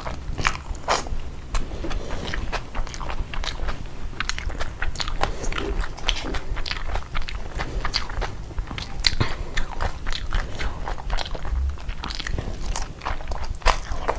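A person eating close to the microphone: wet chewing and biting with many quick, irregular crunches and clicks.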